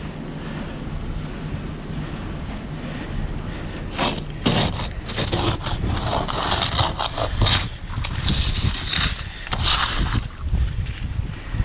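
Plastic ice scraper scraping freezing-rain ice and crusted snow off a car windshield in quick, irregular strokes, starting about four seconds in over a low steady rumble.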